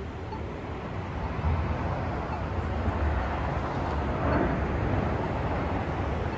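Steady low rumble of street noise, with vehicle engines running, growing a little louder about a second and a half in.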